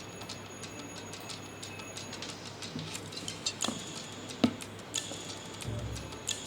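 Faint, tinny music leaking from Bluetooth earphones, heard through a microphone set beside them, with a light ticking beat. A few sharper clicks come in the second half.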